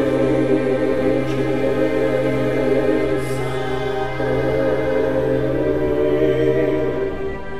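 Music of sustained, choir-like voices holding long chords over a steady low drone, the chord shifting about four seconds in.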